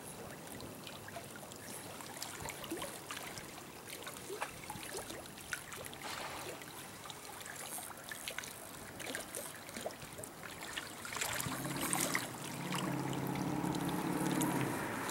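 River water trickling and lapping, with scattered small clicks. About eleven seconds in, a steady low hum joins and runs on almost to the end.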